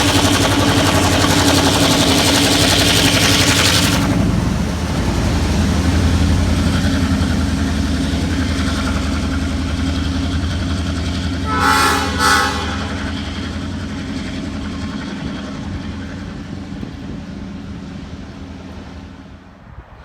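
Heritage train passing, loud at first with a bright hissing rush that ends about four seconds in, then a lower rumble. Two short toots sound about twelve seconds in, and the train then fades away into the distance.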